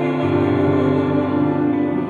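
Woman singing long held notes over a low sustained accompaniment, which drops to a lower note shortly after the start.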